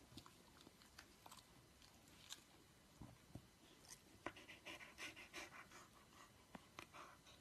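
Faint wet mouth sounds of a Samoyed being petted: small lip-licking smacks and clicks, with a soft breathy stretch a little past the middle as it opens its mouth and yawns.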